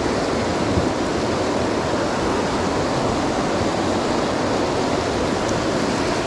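Fast whitewater of a river at high runoff rushing around a small raft: a steady, even rush with no breaks.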